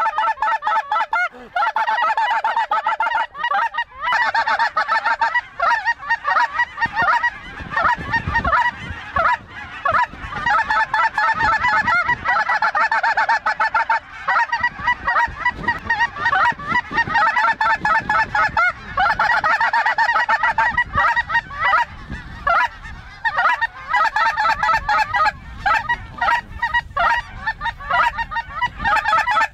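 A large flock of snow geese calling, many birds honking at once in a dense, continuous chorus of short, high, nasal calls.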